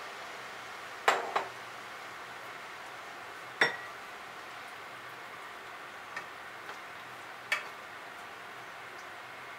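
Several sharp clinks and taps of dishes and utensils being handled, one of them ringing briefly like glass or china, over a faint steady hiss.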